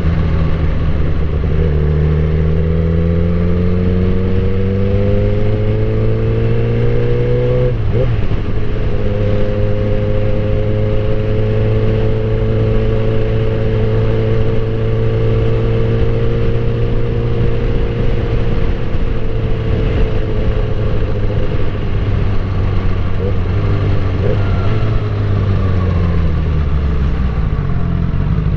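Suzuki GSX-R1000 K8 sport bike's inline-four engine under way. The revs climb for several seconds, and a quick gear change comes about eight seconds in. It then holds a long steady cruise, and the revs drop near the end as it eases off.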